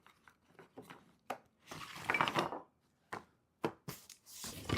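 Cedar wooden beehive parts knocking together as they are handled and lifted out of a box: a few sharp separate wooden knocks with a short rustle of handling in between.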